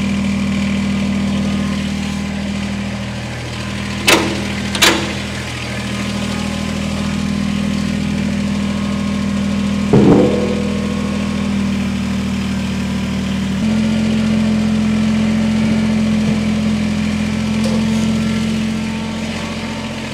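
Kubota BX23S compact tractor's three-cylinder diesel idling steadily. About four seconds in, two sharp metal clicks come as the skid-steer quick-attach levers are popped, and about ten seconds in a heavier clank comes as the loader bucket is dumped off the coupler. The engine note shifts about two-thirds of the way through.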